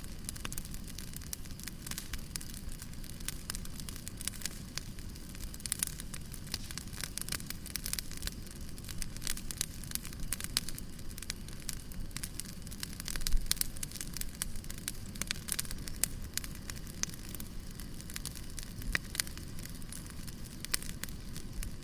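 Campfire burning, with the wood crackling and popping in irregular sharp clicks over a low rumble of flame. There is one louder dull thump about halfway through.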